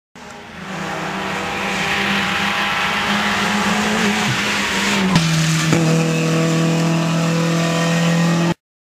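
Rally car engine running hard at high revs as the car approaches, growing louder over the first couple of seconds. About five seconds in the pitch drops sharply at a gearshift, and the sound cuts off abruptly near the end.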